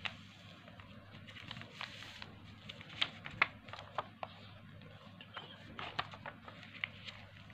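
A sheet of paper being folded and creased into a paper airplane by hand: irregular crisp crackles and taps, a few sharper ones about three seconds in and again near six seconds, over a low steady hum.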